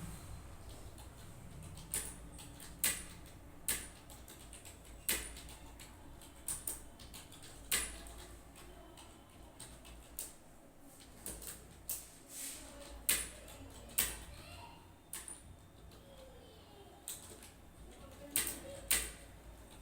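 Computer keyboard keys clicking in separate, uneven keystrokes, roughly one a second, over a low steady background hum.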